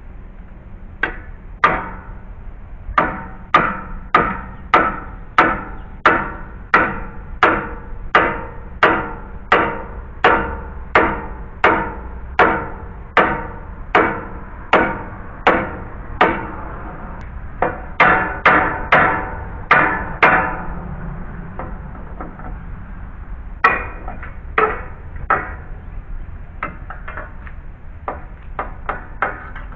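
Hammer blows with a ringing, metallic tone, struck steadily at about one and a half a second, then a quick run of blows, then a few scattered ones: working at spiral nails to get them out.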